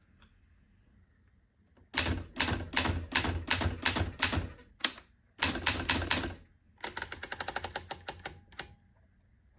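1958 Adler Universal manual typewriter being typed on: a fast run of sharp key strikes after a short pause, a single strike, then a heavier clatter of the mechanism about halfway through. This is followed by an even run of lighter clicks, about eight a second.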